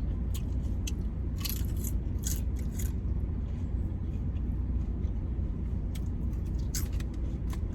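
Crunchy honey butter chips being chewed close to the microphone: irregular crisp crunches, mostly between about one and three seconds in and again near the end, over a steady low hum.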